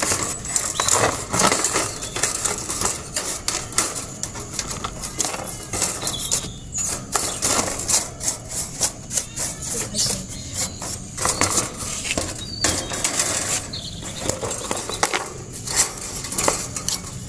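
Brush scrubbing the plastic tray and wire bars of a bird cage: quick, repeated scratchy strokes that come in uneven spurts.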